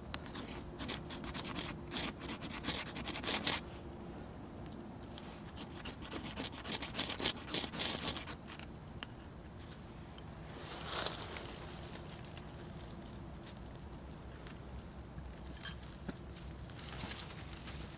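A fire starter scraped in quick repeated strokes to throw sparks into dry grass tinder. Two runs of strokes, then shorter bursts of crackling and rustling as the tinder catches and burns.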